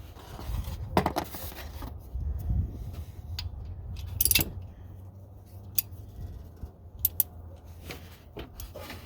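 Oil filter strap wrench being wrapped around and worked on an oil filter: scattered metallic clicks and scrapes, the sharpest about one, four and seven seconds in, over a low rumble of wind on the microphone.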